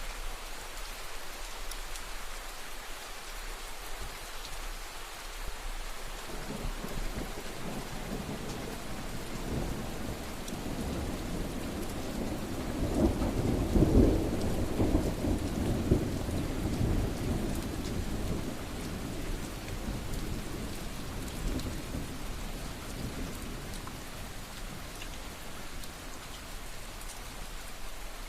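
Steady rain falling, with a long roll of thunder that builds about six seconds in, is loudest around the middle, and slowly dies away.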